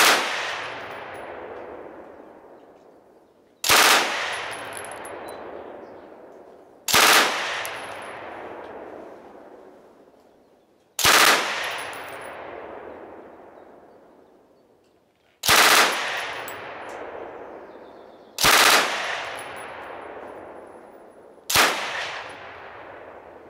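Finnish KvKK 62 light machine gun, an open-bolt, belt-fed 7.62x39mm gun, firing seven short bursts a few seconds apart. Each burst dies away in a long echo.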